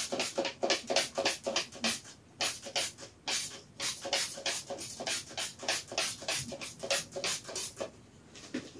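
Trigger-spray bottle of Febreze being pumped rapidly, about three to four short hissing squirts a second with a couple of brief pauses. The bottle is nearly empty. The spraying stops near the end.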